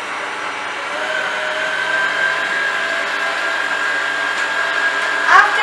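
Kenwood stand mixer running at speed 3-4, its K paddle beating butter and sugar together (creaming). A steady motor whine that settles onto a constant pitch about a second in.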